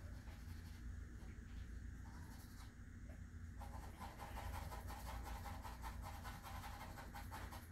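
Graphite pencil scratching on paper in quick, short strokes. It is faint at first and gets louder about three and a half seconds in.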